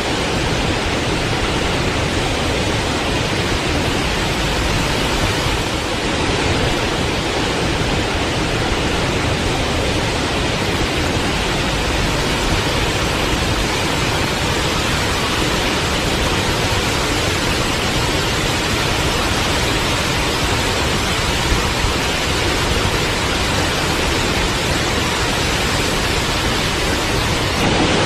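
Forest waterfall: water pouring and splashing in a steady, even rush.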